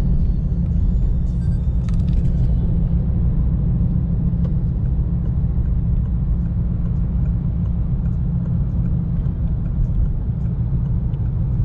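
Steady low rumble of a car being driven through city streets, engine and tyre noise heard from inside the cabin.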